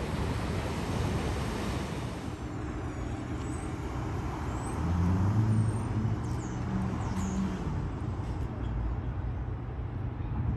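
A steady rush of surf for the first two seconds or so, then street traffic. A motor vehicle's engine passes close, swelling to its loudest about five seconds in, with a few brief high squeaks.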